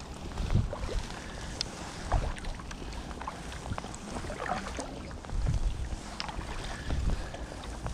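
Kayak paddling: a double-bladed paddle dipping into calm water on alternate sides, with a swish of water at each stroke about every one and a half seconds and small drips and splashes between.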